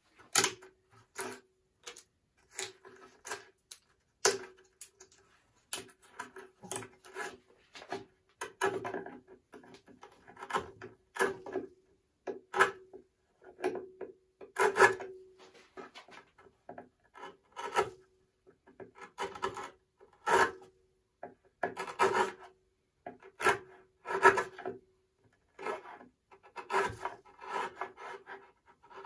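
Bench chisel paring a small hardwood block by hand: a string of short scraping cuts at an irregular pace, each stroke shaving off wood.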